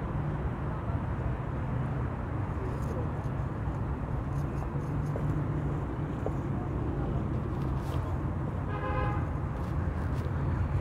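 Steady city traffic noise with a low rumble from the roads around the square, and a short car horn toot about nine seconds in.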